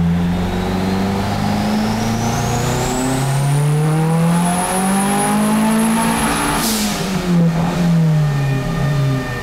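Turbocharged Honda Civic VTi engine making a full-throttle pull, its note climbing for about six seconds with a turbo whistle rising alongside and then holding high. About two-thirds through comes a sudden rush of noise, and the revs fall away. The pull ends with the fuel injectors at 100% duty at about 0.9 bar of boost, which the tuner takes to mean they are not flowing enough fuel.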